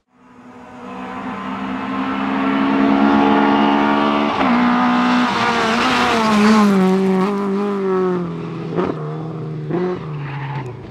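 Rally car engine at high revs, growing louder as it approaches and holding a steady note, then dropping in pitch in steps from about halfway as it passes and comes off the throttle. There are two sharp cracks near the end.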